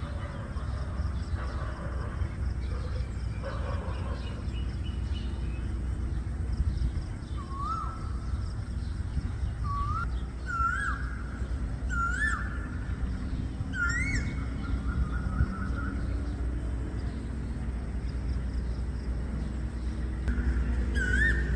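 Asian koel calling: short rising calls repeated every second or two, each pitched a little higher than the last, starting about a third of the way in. A steady low hum runs underneath.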